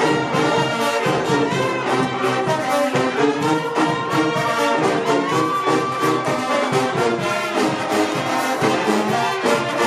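Brass ensemble music playing a tune in steady, sustained notes.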